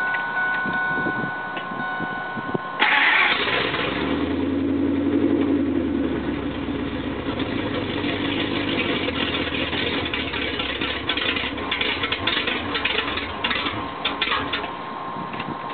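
Ford SVT Lightning's supercharged V8, breathing through open Kooks long-tube headers, fires up about three seconds in. It flares loudly for a couple of seconds, then settles into a steady, uneven idle.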